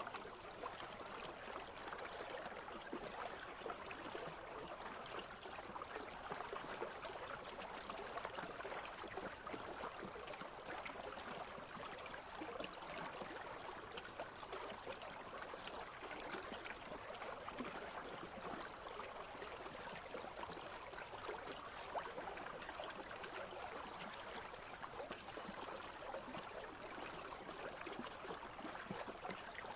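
A country stream babbling steadily, a soft, even rush of flowing water.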